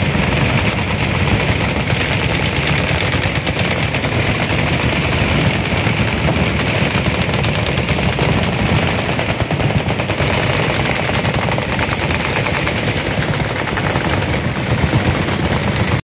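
Many machine guns firing at once along a firing line: a continuous, dense rattle of overlapping bursts with no pause.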